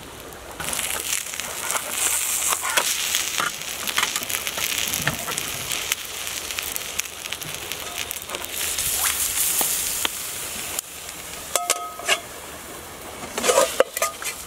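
An oyster, mushroom and onion omelette sizzling steadily in a non-stick frying pan on a portable gas stove. Near the end the sizzle drops and there are a few knocks and clinks as the pan is handled and lifted off the burner.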